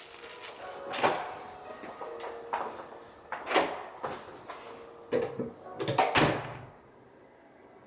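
A series of knocks and short scrapes from things being handled, like a door or drawer being worked, with two close knocks about six seconds in; the sounds stop about seven seconds in.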